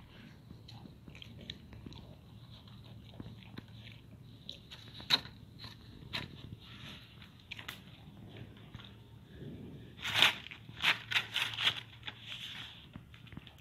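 A large dog eating fried egg and bread, biting and chewing, with one sharp loud bite about five seconds in and a quick run of loud bites from about ten to twelve seconds in.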